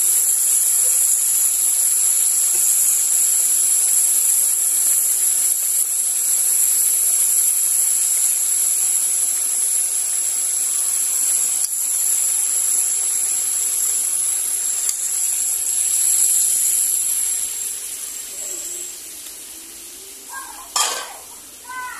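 Skewered paddy snails and ground spice paste sizzling steadily in hot oil in a wok. The sizzle fades down near the end.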